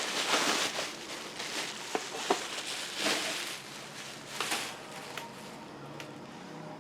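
Bubble wrap being pulled off and unwrapped by hand: plastic rustling and crinkling with scattered sharp crackles. It is busiest in the first second and again around three seconds in.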